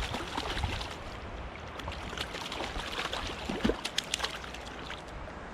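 Hooked trout thrashing at the water's surface: irregular small splashes over the steady rush of stream water.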